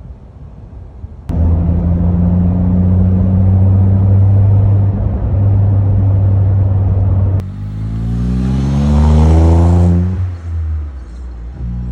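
Daihatsu Copen LA400K's small turbocharged three-cylinder engine heard through a COLBASSO Ti-R exhaust: a loud, steady low drone cuts in about a second in. Later the pitch climbs steadily as the car accelerates, then drops back near the end as it eases off or shifts.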